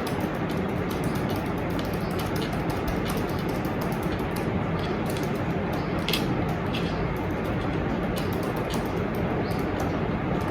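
Fast typing on a computer keyboard: a quick, uneven run of key clicks, several a second, over a steady background noise.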